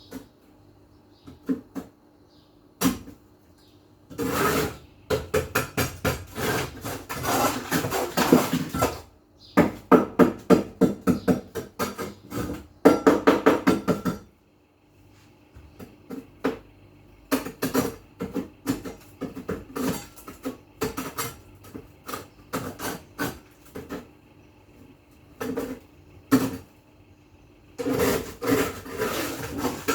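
Hand scrubbing of a hard surface: rapid back-and-forth rubbing strokes, several a second, in runs of a few seconds broken by short pauses.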